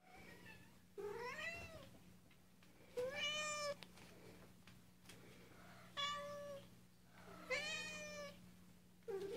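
House cats meowing, four meows about one and a half to three seconds apart, each just under a second long, with a fifth starting near the end: the cats are calling to be fed.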